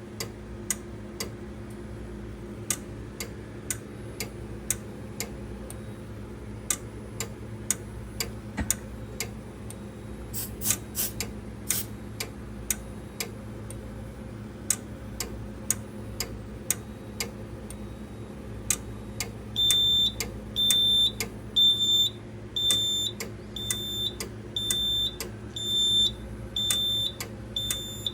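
Sharp clicks every half second or so over a low steady hum, with a quick cluster of clicks about ten to twelve seconds in. About twenty seconds in, a fire alarm sounder starts a loud, high-pitched beep that repeats evenly, a little faster than once a second.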